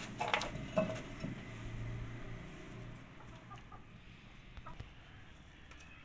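Domestic chickens clucking, mostly in the first second or two, then fading.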